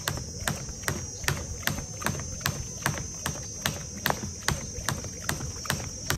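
Jump rope skipping on a rubber mat: a steady, even click of the rope striking the mat about two and a half times a second, over a steady high-pitched background tone.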